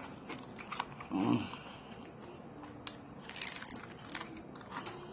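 Close-up eating of crispy homemade fried chicken: crunchy bites and chewing with scattered crackles, a cluster of them a little past the middle. About a second in there is a brief voiced hum.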